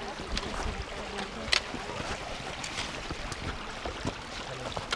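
A mountain stream rushing steadily over stones, with a few sharp clicks and knocks over it, the loudest about one and a half seconds in.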